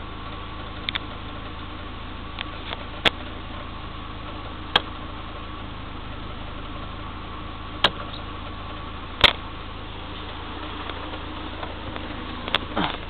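A motor or engine running steadily with a low hum, broken by irregular sharp clicks, about half a dozen loud ones a second or more apart.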